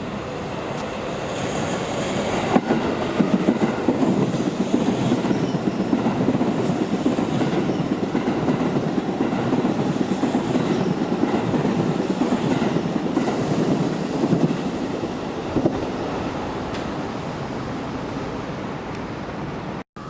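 A train passing, its wheels clattering over the rail joints; the sound builds over the first few seconds and dies away near the end.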